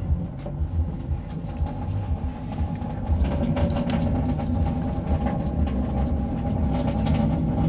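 A steady low mechanical rumble, with a faint steady hum coming in above it about a second and a half in.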